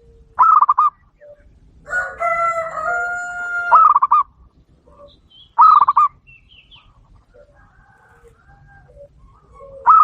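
Aviary doves cooing: short, rapid trilled coos recur four times, about every two seconds, with soft low single coos between them. A loud, drawn-out call of nearly two seconds, held on several steady tones, comes about two seconds in.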